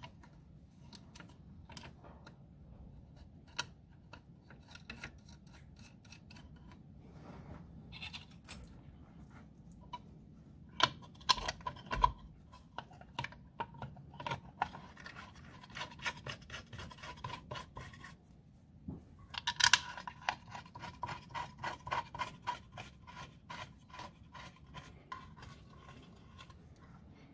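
Metal mounting plate being fitted by hand onto studs on a lathe saddle, with nuts spun on by the fingers: scratching and scraping of metal on metal, broken by two runs of quick light metallic clicking, a short one about 11 seconds in and a longer one from about 20 seconds in.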